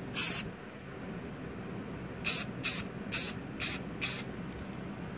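Aerosol can of enamel spray paint hissing in short bursts. There is one burst just after the start, then five quick bursts about two a second, starting a little over two seconds in.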